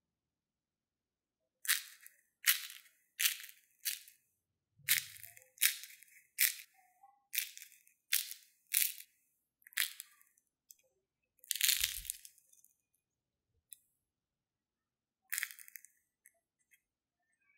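Crisp crunching of deep-fried potato cheese sticks: about a dozen short, sharp crunches in quick succession, then two more with longer gaps between.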